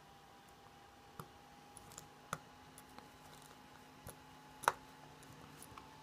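Small plastic clicks from fingertips pressing and working around the edge of a Samsung Galaxy S4's plastic housing, about half a dozen spaced irregularly, the loudest near the end, over a faint steady hum.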